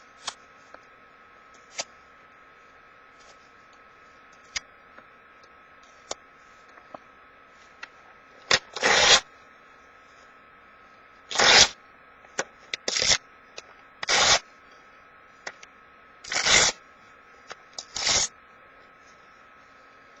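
Paper being torn into strips by hand: light crinkles at first, then about six loud tearing rips in the second half, each under half a second.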